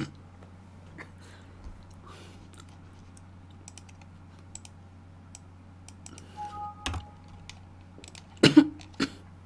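Quiet eating sounds at a close microphone: scattered light clicks of chopsticks and mouth sounds while chewing, with two louder sharp sounds about half a second apart near the end.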